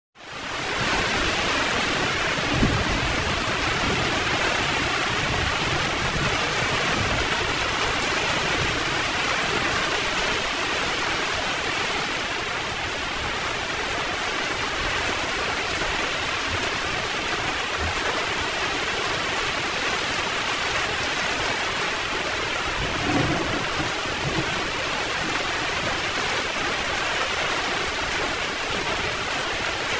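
Heavy rain pouring steadily, fading in over the first second, with low rumbles of thunder about two to three seconds in and again about twenty-three seconds in.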